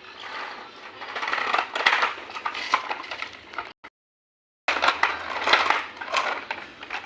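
Crunching, clattering and clinking of small hard objects handled together, broken by a cut to dead silence a little under four seconds in that lasts about a second.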